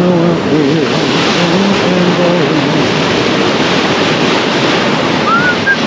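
Surf breaking on the beach makes a steady wash of noise throughout, with wind on the microphone. Over it a man sings a tune for the first few seconds, then starts whistling near the end.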